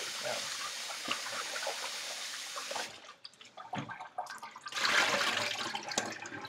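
Kitchen tap water running into a stainless steel bowl of chicken pieces during the final rinse; the flow stops about three seconds in. Near the end the bowl is tipped over the sink and the rinse water pours and splashes out, followed by drips.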